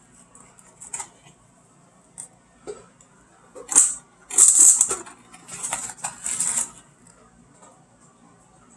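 Handling noise from a stainless steel bowl of apple peels being lifted off a dial kitchen scale: a few light clicks, then three short spells of scraping and rustling in the middle.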